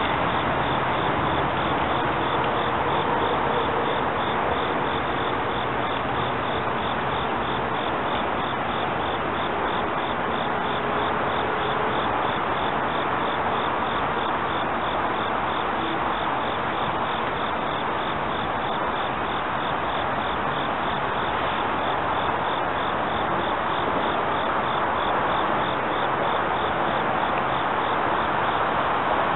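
Insects chirping in a steady, rapid, even rhythm over a constant hiss. Under them, the electric train's running sound fades away in the first half as it pulls off into the distance.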